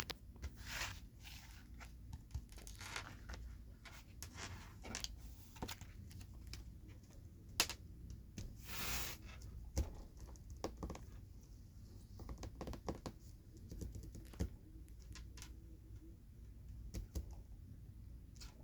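Hands handling large Pokémon cards: scattered soft taps and clicks with brief rustling and scraping of card surfaces, the longest rustle about halfway through.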